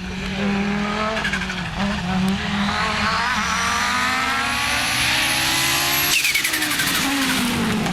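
Rally car engine at full throttle, its note climbing steadily as it pulls through a gear, with a thin high whine rising above it. About six seconds in, the note changes abruptly and drops away sharply.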